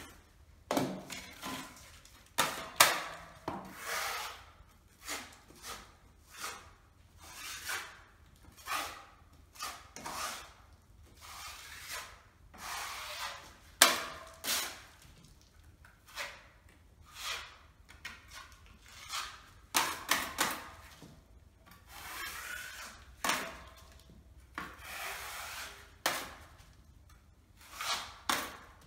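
Steel filling knives scraping wall filler: one blade wiped against another to load and clean it, and the blade drawn across the wall to spread the filler, in short rasping strokes about one every second, a couple of them sharper scrapes.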